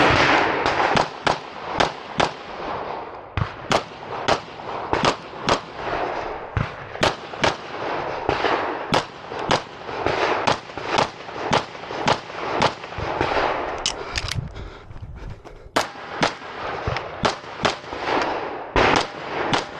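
Pistol shots fired in quick strings, about two a second, each one echoing. The firing breaks off briefly about fourteen seconds in, then resumes.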